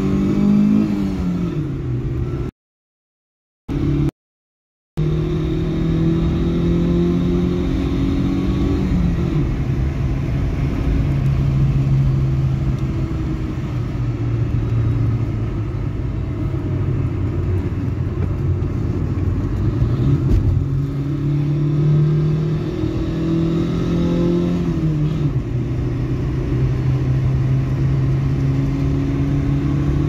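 A car's engine and exhaust heard from inside the cabin while driving, revving up and falling back with each gear change several times. The sound drops out twice briefly a few seconds in.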